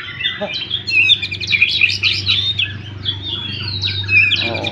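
White-rumped shama singing against a caged ciblek (prinia) held next to it: a rapid, varied stream of chirps, whistles and trills. The shama answering the ciblek's song shows it is in fighting form.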